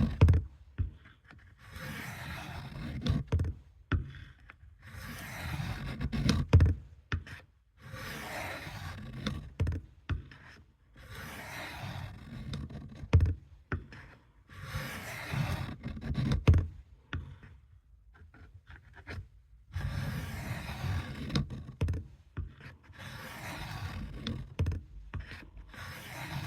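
A Camillus knife's steel blade drawn across a sharpening stone in repeated strokes, roughly one every two to three seconds. Each stroke is a scraping hiss, several of them ending in a light knock.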